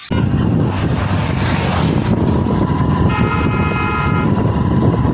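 Wind buffeting and road noise on the microphone from riding pillion on a moving motorcycle, with a low steady rumble. About three seconds in, a vehicle horn sounds for about a second.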